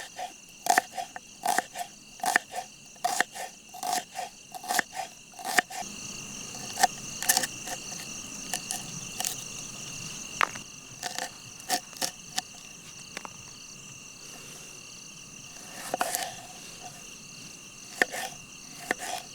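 Night chorus of crickets, a steady high-pitched trill, with a run of sharp clicks about two or three a second for the first six seconds, then only scattered clicks.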